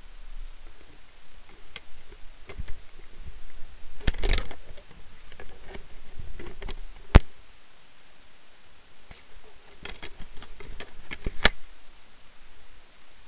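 Underwater sound picked up through a camera housing during a dive: scattered small clicks and knocks, a short rush of noise about four seconds in, and two sharp clicks, one about halfway and one near the end.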